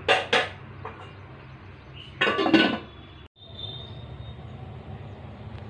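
Steel cookware clinking: two quick metal knocks at the start, then a louder ringing clatter about two seconds in. Over a steady low hum, the sound cuts out for a moment just after three seconds.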